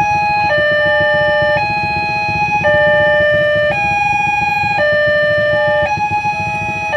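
Electronic railway level-crossing warning siren cycling through a repeating pattern of stepped tones, each note held about a second, with a low pulsing rumble underneath.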